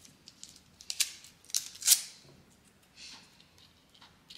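Stiff plastic packaging crinkling and crackling as it is handled and pulled off a new camera: a few sharp crackles about one to two seconds in, the loudest near two seconds, then a softer one near three seconds.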